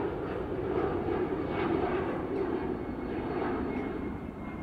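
Jet engines of an Airbus A320-family airliner climbing out after take-off: a steady rumbling roar that fades slightly toward the end.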